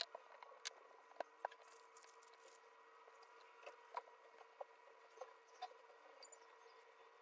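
Faint, scattered small clicks and taps of mobile phone parts and tools being handled, over a steady electrical hum.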